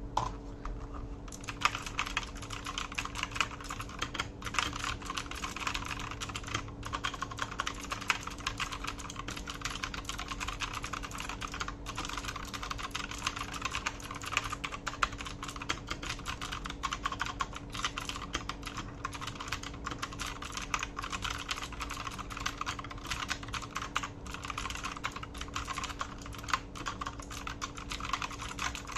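Continuous fast typing on an Akko 3087 DS Horizon V2 mechanical keyboard with clicky Akko V2 Blue switches and PBT double-shot keycaps, a dense stream of crisp key clicks starting about a second in.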